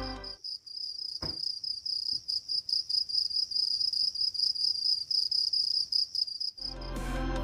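Cricket chirping: a steady high trill pulsing about six times a second, with one short tap about a second in.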